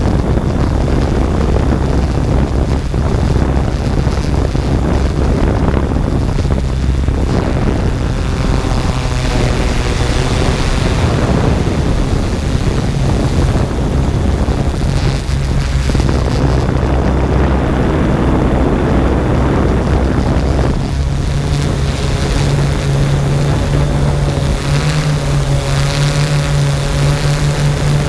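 Yuneec Typhoon G quadcopter's motors and propellers running in flight: a steady rotor hum under a rushing noise, the hum growing stronger about three-quarters of the way in.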